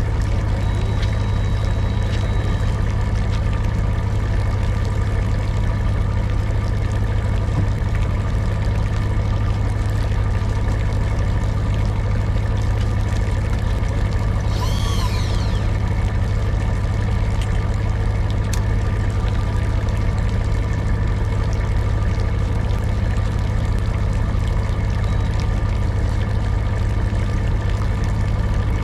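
A fishing boat's engine running steadily at idle, a constant low hum. About halfway through comes a brief high warbling sound.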